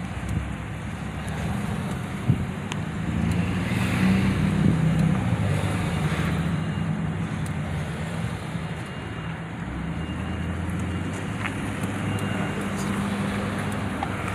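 Car engine and road noise heard from inside a moving car: a steady low hum that swells for a few seconds about four seconds in, with a single sharp click a little after two seconds.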